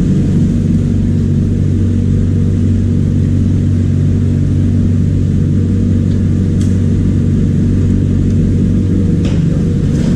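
Electric refrigeration vacuum pump running with a steady, loud, even hum. A few light clicks sound over it in the second half.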